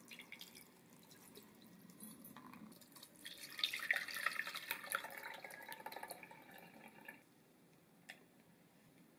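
Rhubarb liquid pouring and trickling through a fine mesh sieve into a glass measuring jug. It splashes for about four seconds and stops abruptly about seven seconds in.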